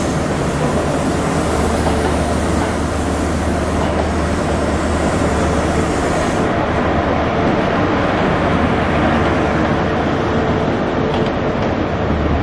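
ScotRail High Speed Train with Class 43 diesel power cars running past: a steady low engine drone under wheel and rail noise. About six and a half seconds in, the high hiss drops away abruptly.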